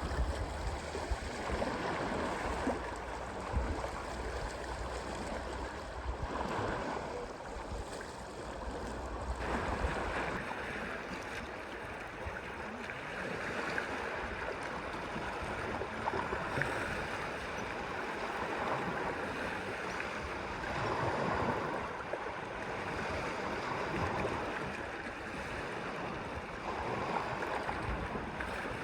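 Moving water washing in swells every few seconds, with a low rumble underneath that stops about ten seconds in.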